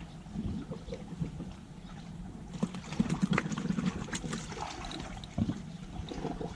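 Small waves lapping and trickling against a rocky shore, with scattered light clicks and knocks that grow busier about two and a half seconds in.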